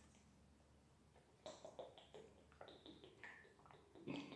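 Near silence, then from about a second and a half in, a few faint clicks and taps as a plastic vitamin bottle is handled.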